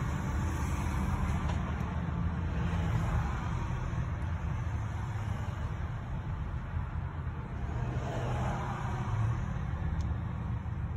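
Car traffic idling and creeping forward in a queue, a steady low engine rumble heard from inside a car's cabin.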